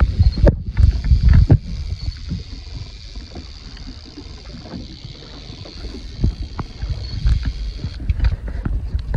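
Boat moving over choppy water: a low rumble with repeated knocks and slaps of water against the hull, loudest in the first couple of seconds.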